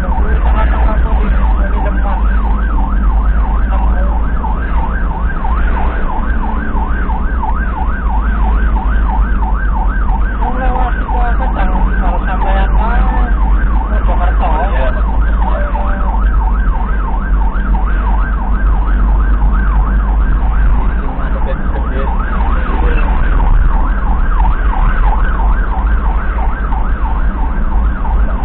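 Emergency siren in a fast yelp, rising and falling several times a second without a break, heard from inside an ambulance cab over a steady low rumble of engine and road. Between about 10 and 15 seconds in, a second, slower sweeping siren tone weaves in over it.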